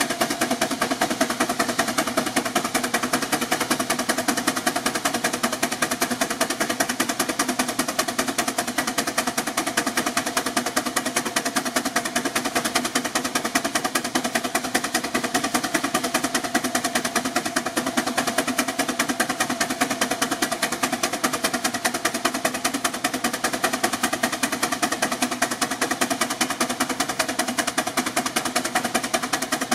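6 hp Advance steam traction engine working under load on a belt-driven dynamometer. Its exhaust chuffs up the stack in fast, even beats that hold steady throughout.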